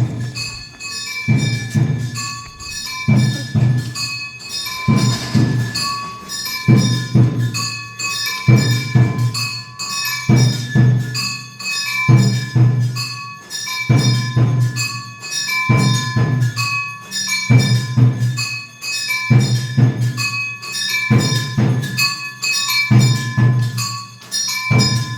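Music with bell-like ringing notes over a steady beat, a low drum stroke coming about every two seconds.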